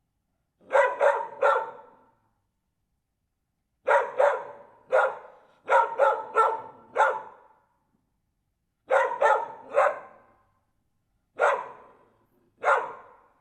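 Dog barking in short bursts of one to four sharp barks, with pauses of a second or two between the bursts.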